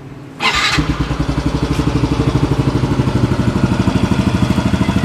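Yamaha Mio i 125 scooter's single-cylinder four-stroke engine starting through a JVT V3 adjustable aftermarket exhaust: a brief crank about half a second in, then it catches and settles into a steady, evenly pulsing idle.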